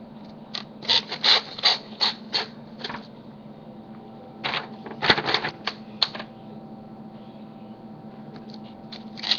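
Handling noises from a sheet of paper and a Swiss Army knife: a quick run of sharp clicks and crinkles over the first three seconds, then another short cluster about five seconds in.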